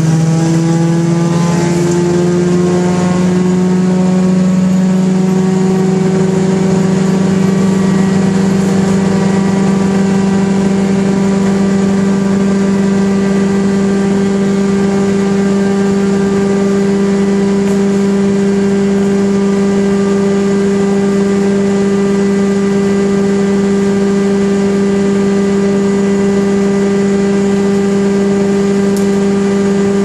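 1974 Wayne wood chipper running at full speed, giving a loud, steady hum. Its pitch climbs back up over the first few seconds as it recovers from chipping a load of brush, then holds steady.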